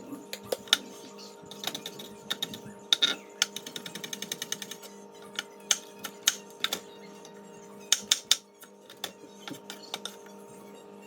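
Irregular sharp clicks and taps, with a quick even run of ticks about three seconds in, over a steady low hum.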